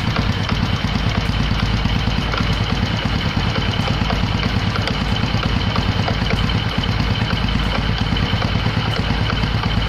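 Honda Supra X125's single-cylinder four-stroke engine idling steadily with a rattling 'gredeg' noise, which the owner suspects comes from a worn one-way clutch in the centrifugal clutch.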